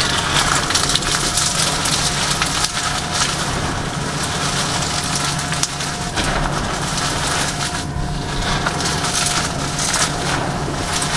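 Dry reformed gym chalk pieces crunching as they are crushed and crumbled by hand into loose powder, going on without a break.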